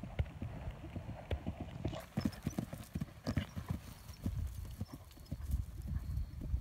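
Hoofbeats of a horse cantering on dry grass turf: a quick run of dull thuds, loudest about two to four seconds in as the horse passes close by.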